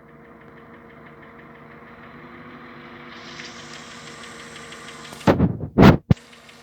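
Skoda Octavia A5 engine idling with a regular light knock ticking along with it, the knock the owner is recording. About five seconds in, two loud short thumps and a sharp click cover it briefly.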